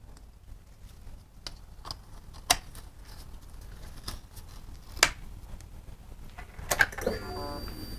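Scattered clicks and taps from working on a Triumph Tiger 800 motorcycle. Near the end, the ignition comes on: a short rising sound, then a steady high whine and a low hum set in.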